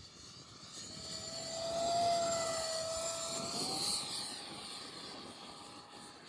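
Arrows Hobby Avanti 50mm electric ducted-fan RC jet making a pass: a steady fan whine that grows louder to a peak about two seconds in, then fades as it moves away, with the pitch stepping up a little near the middle.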